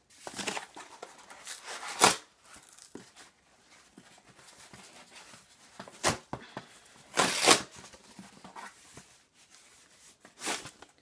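Cardboard book mailer being torn open by hand, since it has no pull tab: irregular rips with rustling and crinkling in between. The loudest rips come about two seconds in, around six to seven and a half seconds in, and near the end.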